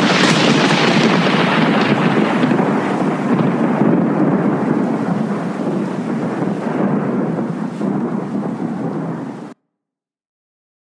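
A loud roll of thunder, starting abruptly and rumbling on for about nine and a half seconds, its hiss fading as it goes, then cut off suddenly.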